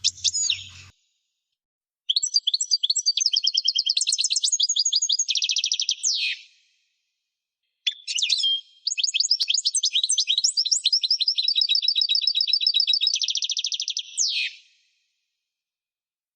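A small songbird singing: a brief high call, then two long phrases of rapid, high repeated notes that run into a fast trill and end in a quick downward sweep.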